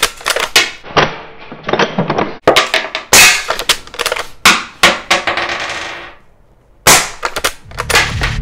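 Umarex Legends Cowboy lever-action CO2 BB rifle firing repeatedly: a run of sharp shots mixed with metallic clacks of the action being cycled and cartridges ejected, with a brief lull before the last shots.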